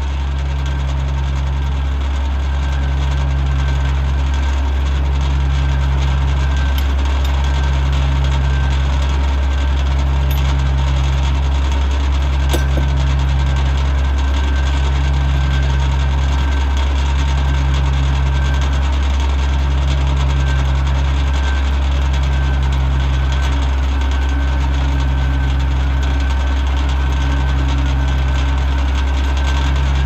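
Oliver 77 tractor's six-cylinder engine running steadily under a flat belt, driving a sawmill's circular saw that spins free without cutting. A low hum swells and fades about every two seconds, with one sharp click midway.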